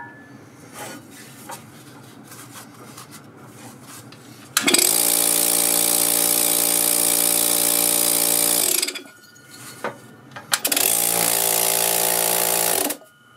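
Previously seized DEWALT air compressor pump, lubricated and test-run on the bench, running in two bursts. The first lasts about four seconds and the second about two; each is a loud steady hum with a hiss over it and cuts off suddenly, and the pump is now working and pumping. A few faint handling clicks come before and between the runs.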